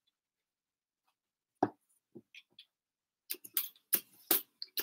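Vegetable peeler shaving the tough skin off the lower part of an asparagus spear laid on a cutting board: a quick series of short scraping strokes in the last second and a half, after a single light knock about a second and a half in.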